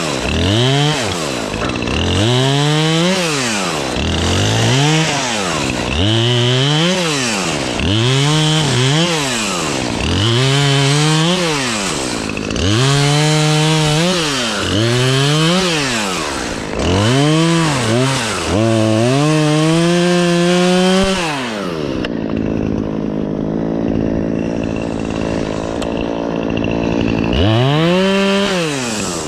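Chainsaw revving up and dropping back again and again, about every two seconds, making short nibbling cuts through tree limbs. Near the end it settles to idle for a few seconds, then revs once more.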